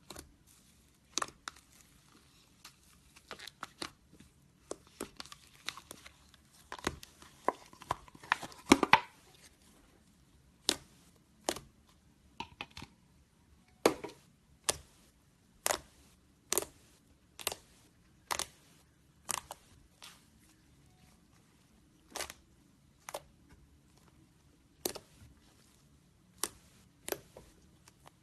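Slime being handled, making short sharp pops and clicks: a denser crackly stretch about seven to nine seconds in, then single pops about once a second.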